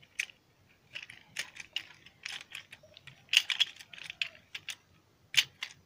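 Irregular light clicks and rattles of a plastic switchboard plate and the 2-in-1 socket fitted in it being handled, with the sharpest clicks a little past three seconds in and again near the end.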